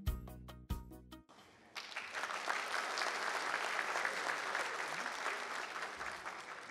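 The carol's instrumental accompaniment plays its last few struck notes and stops about a second in. An audience then applauds steadily, and the applause fades toward the end.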